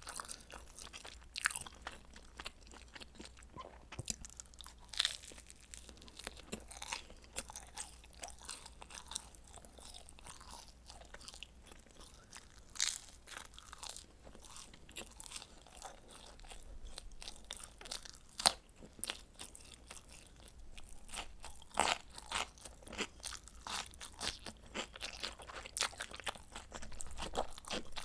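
A person eating pizza close to the microphone: chewing, with irregular crisp crunches from biting the crust and one louder crunch about two-thirds of the way through.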